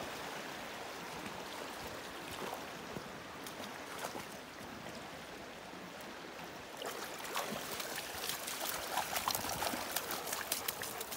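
Shallow stream running steadily while a Pudelpointer dog wades in it; from about seven seconds in, quick splashes and paw steps in the shallow water come louder and faster as the dog moves toward the bank.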